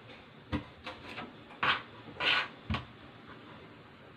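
Kitchen knife cutting tomatoes on a white plastic cutting board: about six irregular knocks of the blade on the board, two of them slightly longer slicing cuts.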